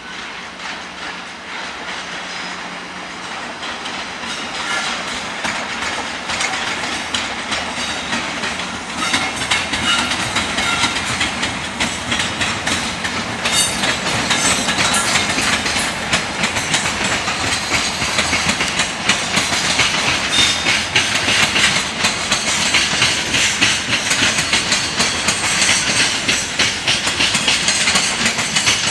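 Japanese freight train passing, its wagon wheels clacking rhythmically over rail joints. It grows louder over the first ten seconds or so, then holds steady as the wagons roll by.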